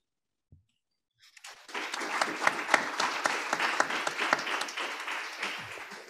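Audience applauding. It starts about a second in and fades out near the end.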